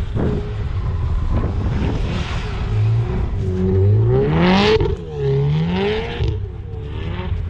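Car engine revving hard while spinning its wheels in deep snow during a donut, the pitch swaying up and down with the throttle. About four seconds in it climbs steeply, then drops off sharply near the middle before rising again.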